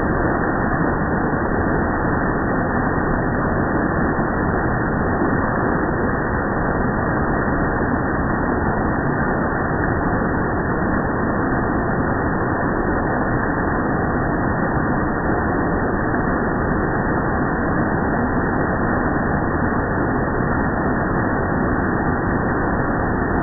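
Heavy hail and rain falling in a dense, steady downpour, a continuous hiss of many small impacts with no let-up.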